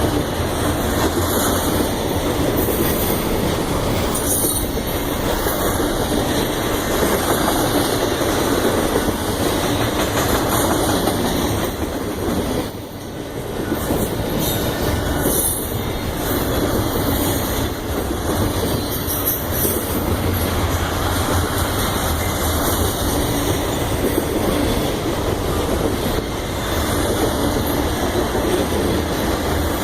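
Union Pacific train's cars rolling past, a steady, continuous noise of wheels running on the rails, dipping briefly about thirteen seconds in.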